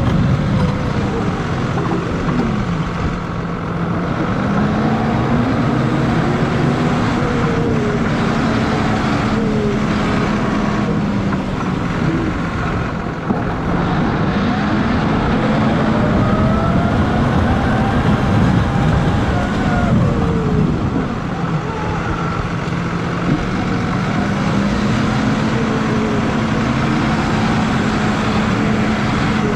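John Deere 6155R tractor's six-cylinder diesel engine running steadily under load while pushing snow with a front-mounted plow. A whine rises and falls in slow arcs several times as the engine and drive speed change.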